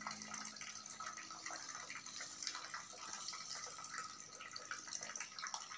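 Faint, irregular dripping and trickling of water in shallow earthen ponds on the floor of a swiftlet house, ponds kept to cool the building and hold its humidity.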